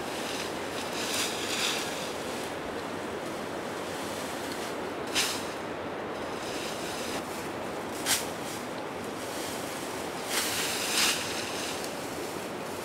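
Steady rushing outdoor noise, like wind, broken by about five short, crisp rustles of dry grass and leaves, one near the start, others about five and eight seconds in, and a longer one near the end.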